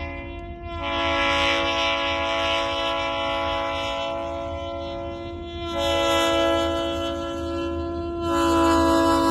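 Diesel locomotive air horn sounding a steady multi-note chord in long blasts, with brief breaks between them, warning for the grade crossing as the train approaches. The horn gets louder near the end, over a low engine rumble.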